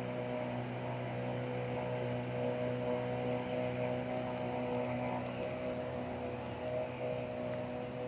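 Motorboat engine running steadily, a loud, even drone that holds one pitch.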